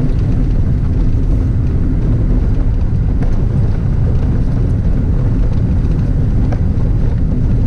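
A car driving on a rough, broken road: a steady low rumble of tyres and engine with a faint hum.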